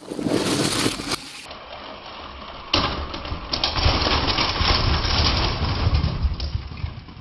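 A crash: a burst of noise, then a sharp impact about three seconds in, followed by several seconds of clattering over a low rumble that fades away.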